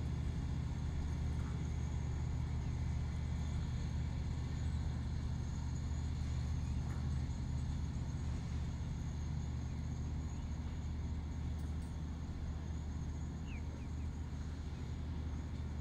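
Diesel engine of the Volker Rail track tamper DR75301 running as the machine moves slowly away, a steady low drone that fades gradually.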